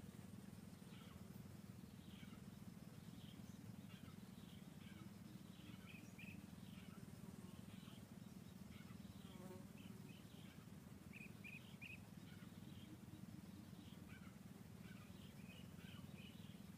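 Near silence: faint outdoor ambience with a steady low hum and scattered faint high chirps.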